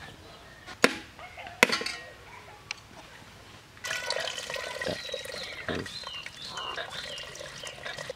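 Two sharp knocks in the first two seconds, then coconut water splashing in a thin stream from a cracked coconut into an aluminium pot from about four seconds in.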